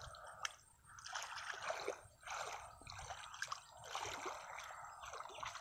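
Hands groping and scooping through wet mud and shallow water, squelching and splashing in uneven bursts with short pauses between them.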